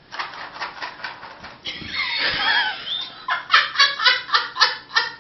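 A person laughing hard: a run of quick breathy laughs, a high squealing stretch in the middle, then rapid bursts of laughter near the end.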